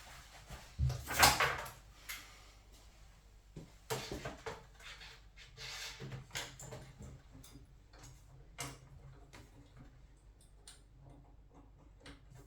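Irregular knocks, clicks and clatter of hands and tools handling boiler parts, the loudest knock about a second in.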